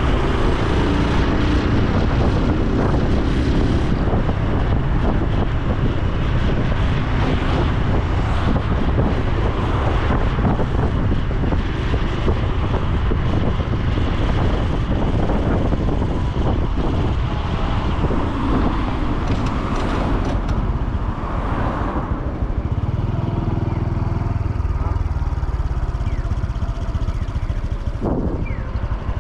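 Honda Super Cub C125's single-cylinder four-stroke engine running while riding, with steady wind noise on the microphone.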